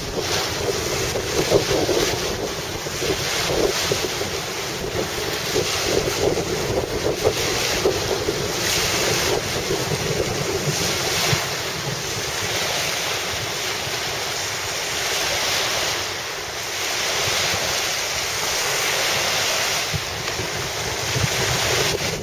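Wind buffeting the microphone in gusts, over the wash of choppy sea waves.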